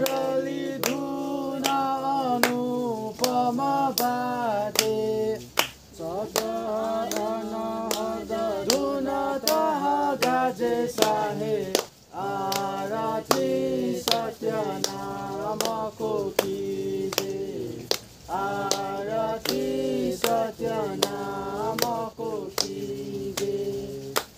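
Voices singing a devotional song in phrases with short breaks between them, over sharp percussive beats that keep a steady pulse about twice a second.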